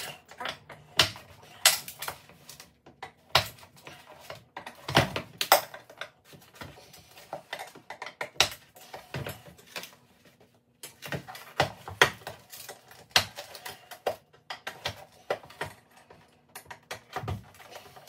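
Screwdriver prying and scraping at the glued seam of a headlight housing, with irregular sharp clicks and knocks as the tool levers at the lens edge and the housing shifts on a stone countertop. The housing has been heated in an oven to soften the lens glue so the lens can be pried off.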